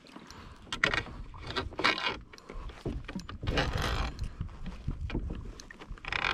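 Water splashing and sloshing beside a plastic kayak as a hooked mahi-mahi is fought close alongside, in several short surges, with wind rumbling on the microphone.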